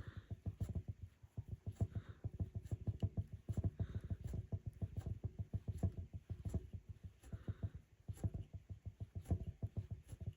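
Rug hook punching through taut backing cloth and pulling wool loops up: a fast run of soft, low taps, several a second, with a few brief scratchy rasps of wool drawn through the cloth.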